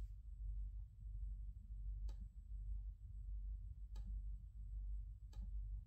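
Three sharp clicks of buttons being pressed on audio equipment, about two seconds apart, over a low steady hum and a faint high-pitched whine.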